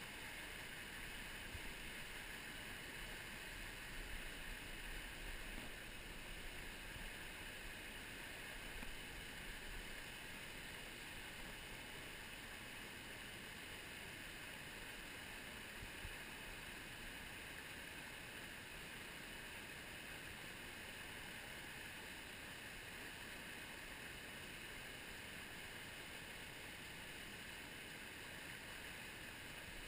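Small mountain brook running over rocks: a faint, steady rush of water.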